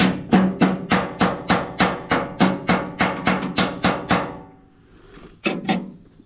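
Rapid, even run of about fifteen sharp knocks, three or four a second, each with a brief ringing tone, stopping after about four seconds; two more knocks follow near the end.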